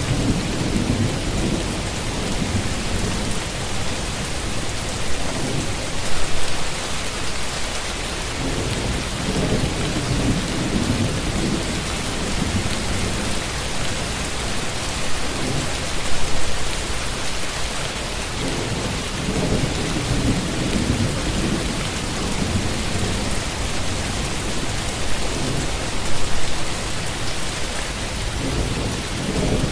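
Steady heavy rain falling, with low rolls of thunder swelling and fading every few seconds; the loudest rumbles come about every ten seconds.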